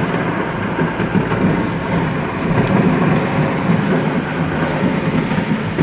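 Steady rumble of road and engine noise from inside a moving car's cabin at highway speed.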